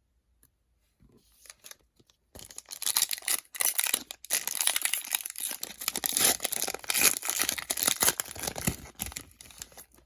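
Foil wrapper of a trading card pack being torn open and crinkled, starting about two seconds in and going on for about seven seconds.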